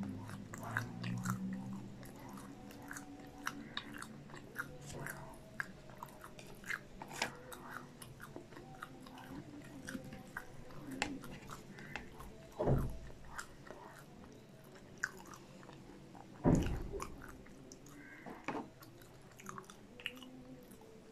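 Close-miked chewing and biting of fried popcorn chicken and potato wedges, with many small crunchy clicks. Two louder low thumps come about twelve and sixteen seconds in.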